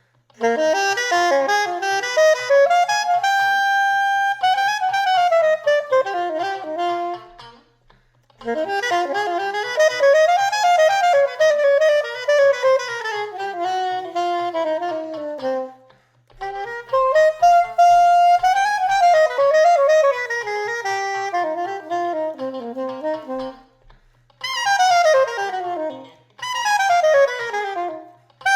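Saxophone improvising funky jazz lines over a D minor groove, moving between D minor ideas and the A7 altered scale for an outside sound. It plays several phrases separated by short breaks, with a long held note about four seconds in.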